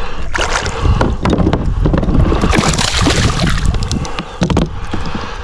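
Wind buffeting the microphone, a steady deep rumble, with irregular knocks and clatter. A louder rushing swell comes about two to three and a half seconds in.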